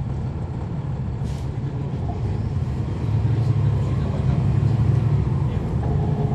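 Inside a 2011 NABI 40-SFW transit bus, its Cummins ISL9 diesel engine running with a steady low drone that grows louder about three seconds in.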